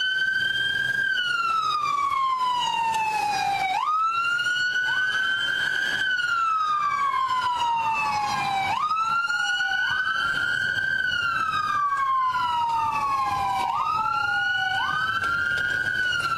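Police car sirens in wail mode: each cycle climbs quickly and then falls slowly, repeating about every five seconds, with a second siren a beat behind the first.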